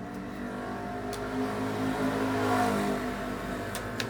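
A motor vehicle's engine passing by, its sound swelling to a peak about two and a half seconds in and then fading.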